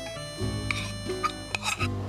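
Instrumental background music: a tune of held notes changing about every half second over a low bass line.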